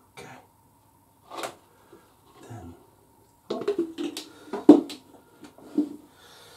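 Plastic oil measuring jug and funnel being handled and set down: a few light clicks, then a cluster of louder plastic clunks and knocks about halfway through.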